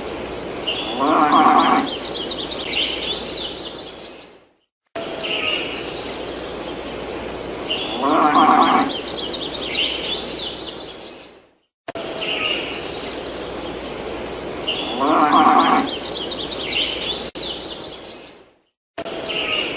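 A farm-animal call with birds chirping around it, the same few-second clip played three times over with short silent gaps between.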